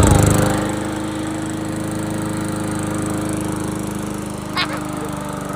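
Small gasoline lawnmower engine running steadily at idle, louder for the first half second and then even. A brief sharp squeak cuts in about four and a half seconds in.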